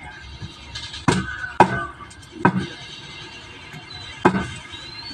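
Heavy knife chops on a cutting board: four separate strokes at uneven intervals.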